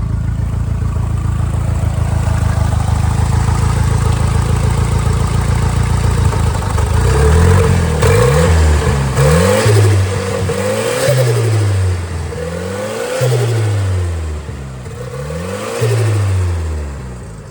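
Turbocharged Mazda B2200 2.2-litre four-cylinder engine running on a freshly installed Microsquirt standalone ECU. It idles steadily at first; from about seven seconds in it is blipped several times, its pitch rising and falling with each rev.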